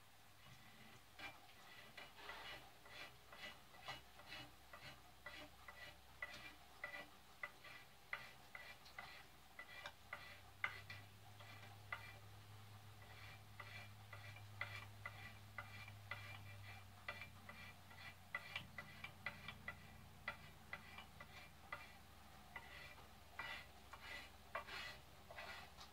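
Knife spine scraping factory varnish off a wooden axe handle, in short faint strokes about twice a second.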